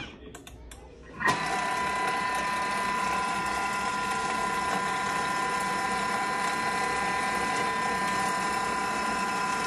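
Thermomix food processor mixing a liquid marinade sauce at speed 5: the motor starts with a few clicks about a second in and then runs at a steady whine with several steady tones.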